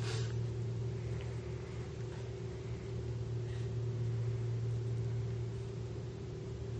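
Steady low hum with a faint even hiss: room tone.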